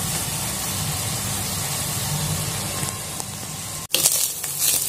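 Ground pork sautéing in a pan with garlic and onion: a steady sizzle. After a brief break about four seconds in, the sizzle comes back louder, with sharp short strokes.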